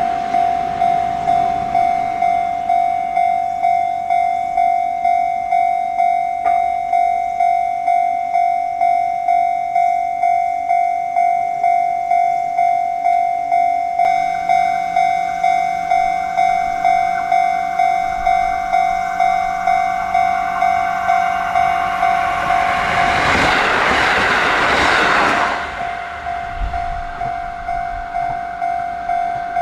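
Level-crossing warning bell ringing in a steady, even rhythm, about one and a half strikes a second, each strike dying away. A train passes close by for a few seconds near the end, the loudest part.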